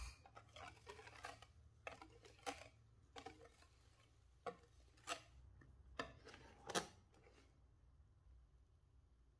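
Faint irregular clicks and scrapes of a wire balloon whisk against a glass bowl as flour is whisked into cake batter. They stop about seven seconds in.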